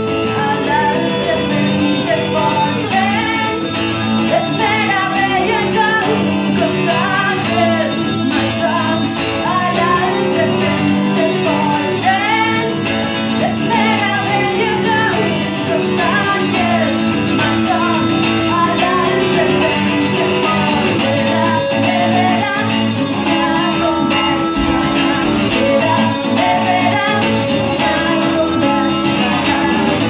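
Live song: a woman singing over two electric guitars played through small amplifiers.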